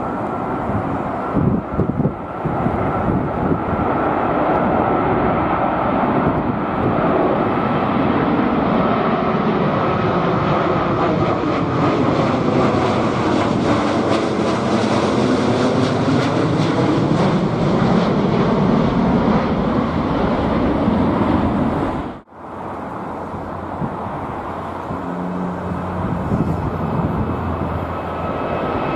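Jet airliner engines passing close by, a loud roar with a phasing swish that swells to a peak about halfway and then fades, with a high whine that dies away. After a sudden cut, a second aircraft's engines are heard more quietly, growing louder near the end.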